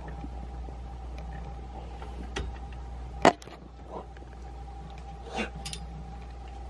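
A dog rooting about with its nose in a wire pen: a few scattered clicks and knocks, the loudest a sharp knock about three seconds in, and a short rush a little past five seconds, over a steady low hum.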